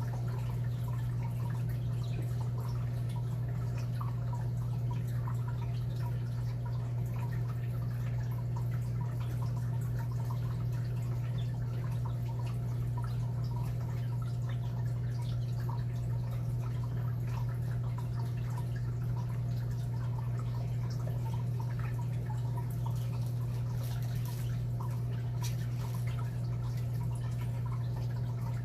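Steady low hum with faint, irregular small ticks and clicks over it.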